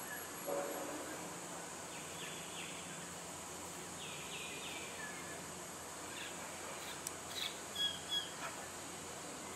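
Outdoor ambience: a steady high-pitched insect drone with scattered bird calls over it. There is a brief lower call just after the start, groups of quick falling chirps about two and four seconds in, and a few louder short calls near the end.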